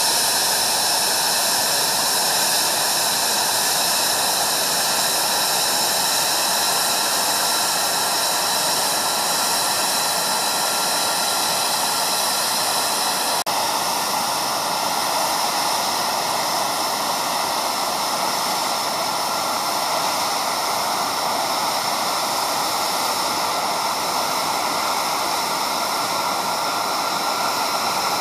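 Jet noise from an F-22 Raptor's twin Pratt & Whitney F119 turbofan engines in flight: a steady, loud rushing sound with faint high tones that drift slightly in pitch.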